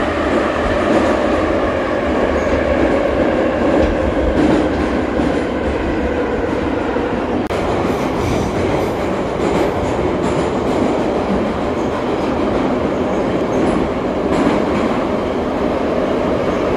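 Interior running noise of a vintage Ezh-3 Moscow metro car under way: a loud, steady rumble of wheels on the track with a faint whine over it.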